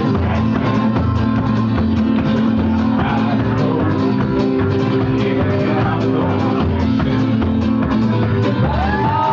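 A live band playing an instrumental passage without vocals: guitar over a quick, steady drum beat, with a sliding pitch near the end.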